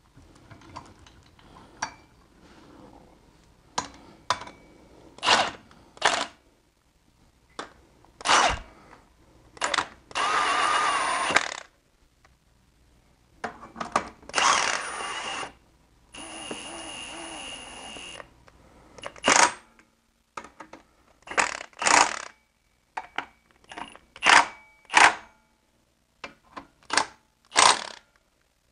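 Cordless power tool driving M12 bolts into an engine block through an engine-stand bracket, in many short trigger bursts with a few longer runs of a second or two. Sharp metallic clicks come between the bursts.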